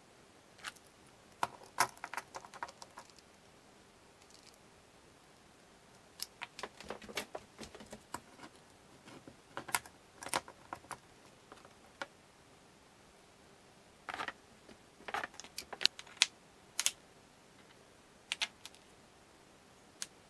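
Spring clamps and small bar clamps being released and set down on a wooden workbench: several groups of sharp clicks and clatters with quiet gaps between.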